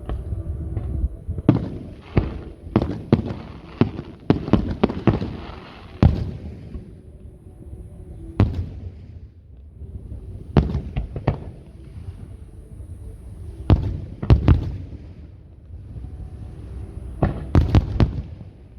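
Aerial fireworks bursting: a rapid volley of bangs in the first few seconds, then scattered groups of two or three sharp bangs every few seconds over a low rumble.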